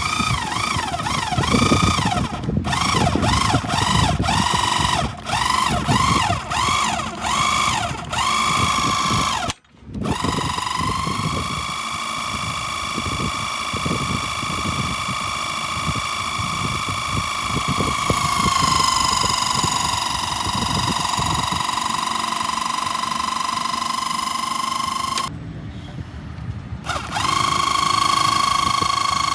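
Enerpac electric hydraulic pump whining as it drives a portable track pin press. It runs in about seven short bursts at first, each rising and falling in pitch, then runs steadily, dropping slightly in pitch about two-thirds of the way through. It stops briefly near the end and starts again.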